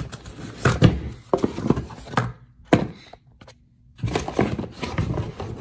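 A dead blow hammer is pulled out of a cardboard shipping box, with cardboard rustling and scraping and several thunks, and a pause of about two seconds in the middle.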